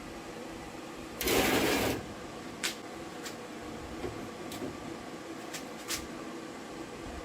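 Hands-on work on a driveshaft's U-joint: a short burst of hiss lasting under a second, then five sharp clicks or taps over the next few seconds.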